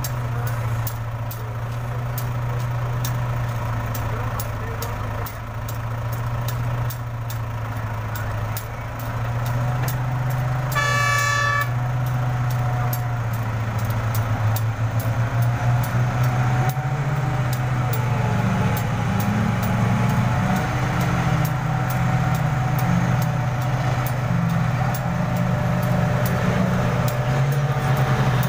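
Diesel engines of a large mining excavator and haul truck running steadily. A single horn blast of about a second sounds a little over a third of the way in. In the last third the engine gets louder and its note rises and falls as the loaded haul truck pulls away and drives close by.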